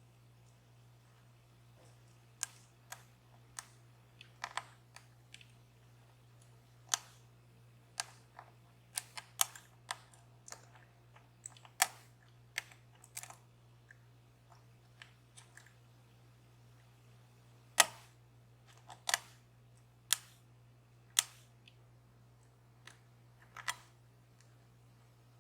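Irregular sharp metal clicks of lock picking tools working a DOM Plura lock: the pick and tension wrench ticking in the keyway as pins are set, in scattered single clicks and short clusters, with a low steady hum beneath.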